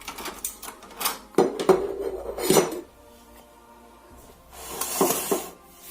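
Kitchen dishes and utensils being handled: a series of clinks and knocks, then a short rustling, shaking noise about five seconds in.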